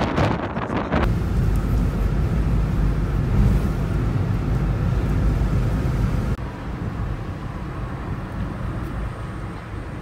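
Strong wind rumbling and buffeting against the microphone. After a cut about six seconds in, it gives way to quieter, steady road noise from a moving car.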